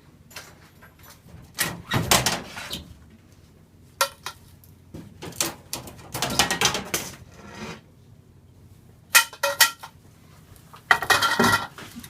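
Fluorescent T8 tubes being twisted out of their sockets and handled: clicks and clattering scrapes of glass and metal in several short bursts.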